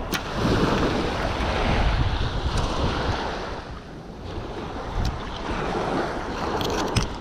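Small waves breaking and washing up the sand, with wind buffeting the microphone; the sound swells and eases. A few sharp clicks, several of them close together near the end.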